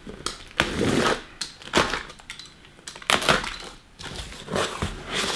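Utility knife slitting the packing tape along a cardboard box in several short scratchy strokes. In the last second or so, the cardboard flaps are pulled open with a rustle.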